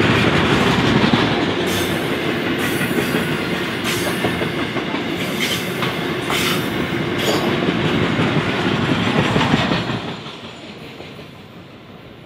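Container freight wagons rolling past: a steady rumble of steel wheels on rail with repeated clacks over the rail joints. The sound falls away about ten seconds in as the last wagon passes and recedes.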